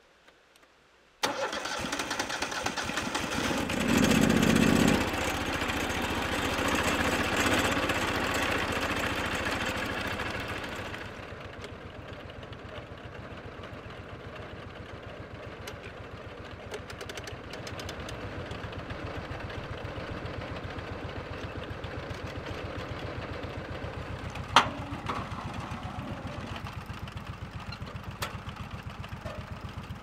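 The Kohler Command PRO engine on a Lucas Mill portable sawmill starts about a second in and runs loud for about ten seconds. It then drops to a quieter, steady idle, with a single sharp click near the end.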